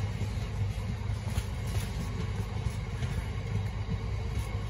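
Freight train of empty container flat wagons rolling past close by: a steady rumble of steel wheels on the rails, with occasional faint clicks.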